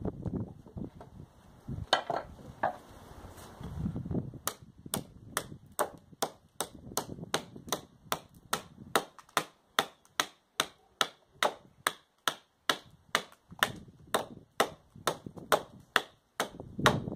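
MSK-1 survival knife chopping into a length of softwood held upright on a sawhorse. A few scattered knocks come first, then an even run of sharp chops about three a second.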